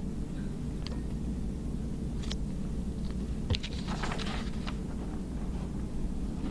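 Steady low hum picked up by the podium microphone in a small briefing room, with faint rustles and a sharp click about three and a half seconds in.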